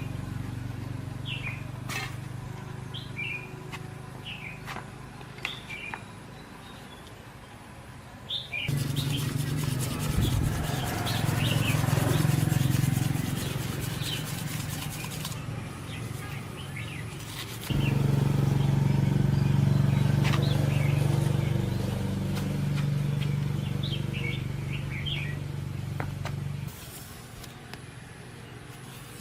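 A motor runs with a low, steady hum that grows louder for two long stretches and cuts off suddenly near the end. During the first loud stretch a strong hiss sounds over it. Small birds chirp throughout.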